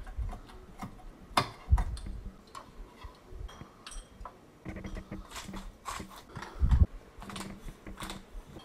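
Santoku knife tapping and knocking on a wooden cutting board as half a garlic clove is pressed and minced, a string of irregular sharp clicks with a few louder knocks. Later the knife scrapes minced garlic into a glass bowl and a spice grinder is turned near the end.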